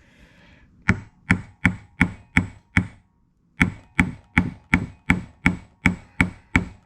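Hammer tapping a small punch into the brass Welch plug of an outboard carburetor, in two runs of quick, even blows, six and then nine, about three a second. The blows drive the punch clean through the plug.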